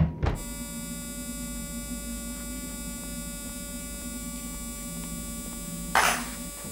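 Steady electrical mains hum with many overtones, cutting in sharply just after a couple of knocks at the start. About six seconds in, a short burst of hiss rises over it.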